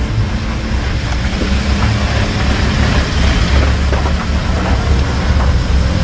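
Car or light truck driving on a rough unpaved mountain road: a steady low rumble of engine and tyres on gravel, with scattered small knocks.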